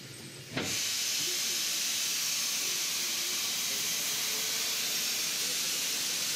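Steam locomotive venting steam low at the front with a loud steady hiss that starts abruptly about half a second in.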